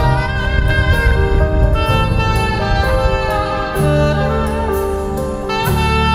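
Saxophone playing a melody of held notes live over a recorded backing track with bass and light percussion from a PA loudspeaker.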